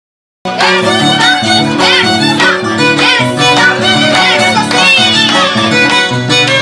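Andean huaylia Christmas music: violin playing a fast wavering melody over a plucked harp accompaniment, starting abruptly about half a second in after silence.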